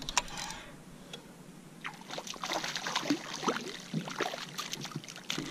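A small Spanish mackerel thrashing and splashing at the water's surface on a fishing line, a quick irregular run of splashes starting about two seconds in.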